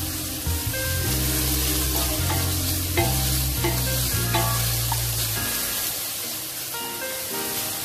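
Sliced ginger, lemongrass, shallots, garlic, turmeric and chili sizzling in hot oil in a stainless steel wok, stirred and scraped with a wooden spatula, with a few sharp knocks of the spatula on the pan, the loudest about three seconds in. Background music with bass notes plays under it for the first five seconds or so.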